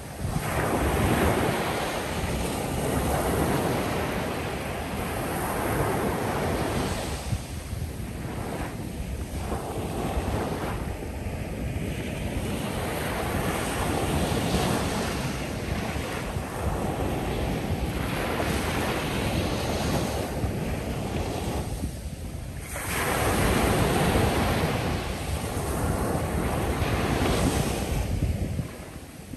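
Ocean surf washing onto a sandy shoreline: a steady rush of breaking waves that swells and eases every few seconds, with a longer, louder surge near the end.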